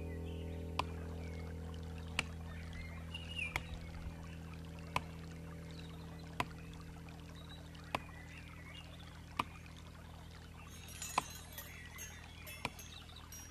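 Quiet passage of orchestral music: a low held chord slowly fading, with a sharp tick about every second and a half and a faint high jingling near the end.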